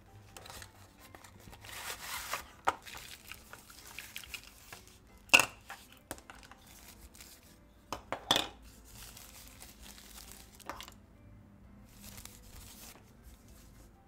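Unboxing noises: a card box being opened and tissue paper crinkling and rustling, with two sharp knocks about five and eight seconds in, the loudest sounds here.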